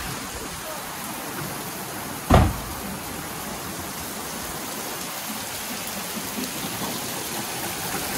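Steady rain hiss, with one short, sharp thump a little over two seconds in.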